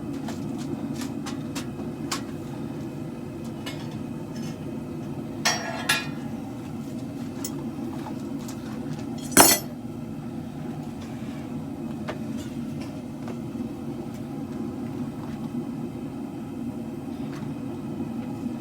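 Propane forge burners running with a steady low rush, while metal is handled and struck: scattered light clinks, a ringing clank about six seconds in and one loud metal strike about nine and a half seconds in.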